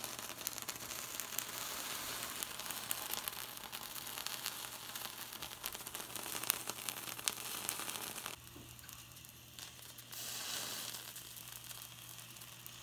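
Water leaking from the seam of a stovetop espresso maker sizzling and crackling on the hot electric burner, with many fine crackles; it drops to a quieter hiss about eight seconds in. The sizzle is the sign of the pot leaking at its seam, with pressure escaping there.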